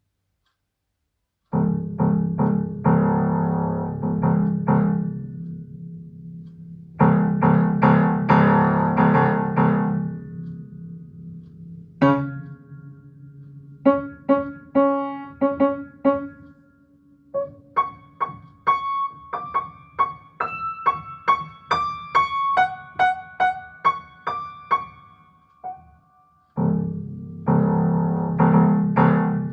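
Piano improvisation. About a second and a half in, loud low chords are struck repeatedly and left to ring and die away, and again around seven seconds. Lighter, quicker repeated higher notes follow, and heavy low chords return near the end.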